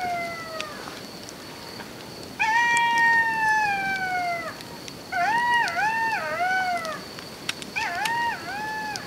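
Golden jackal howling close by: the tail of one wail falling in pitch, then a second long falling wail, followed by two bouts of wavering, yodelling cries.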